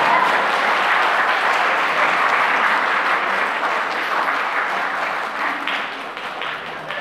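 Audience applauding: a dense, even wash of clapping that thins out near the end into scattered individual claps.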